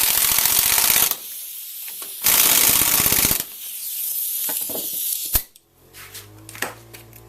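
Impact wrench hammering in two bursts of about a second each, a short pause between them, while it runs down a nut on the strut assembly. A sharp click follows about five seconds in.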